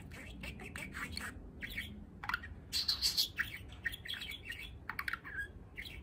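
A male budgerigar warbling: a quick run of short chirps and chatter, loudest about halfway through, that stops just before the end.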